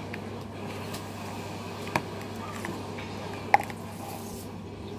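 Stiff, hard homemade slime being squeezed and worked between the fingers, with faint small crackles and two sharp clicks or pops, about two seconds and three and a half seconds in.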